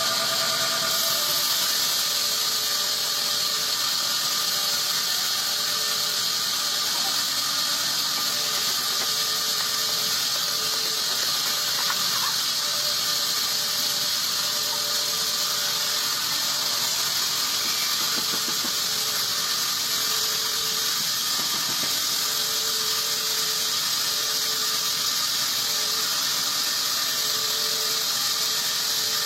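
Sawmill band saw ripping a teak log lengthwise: a loud, steady, high-pitched sound of the blade running through the wood.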